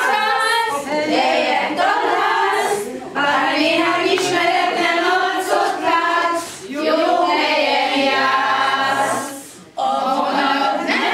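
A group of women singing together unaccompanied, in phrases broken by brief pauses about every three seconds.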